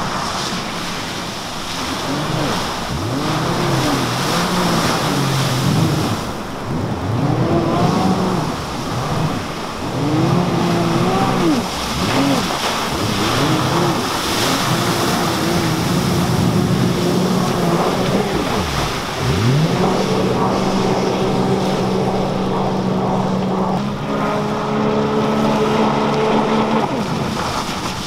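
Sea-Doo jet ski engine revving up and down as the craft carves turns, its pitch rising and falling again and again over the hiss of spray. About two-thirds through the pitch dips sharply and climbs back, then holds steadier for several seconds near the end.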